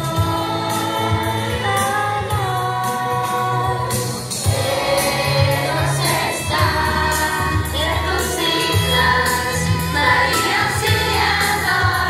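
Choir singing religious music with band accompaniment: a bass line and a steady percussive beat under the voices.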